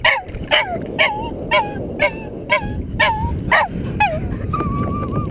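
A dog whining and yelping over and over, about three short high cries a second, then one longer steady whine near the end. The dog is excited and frantic to get at a musky held in the landing net beside the boat.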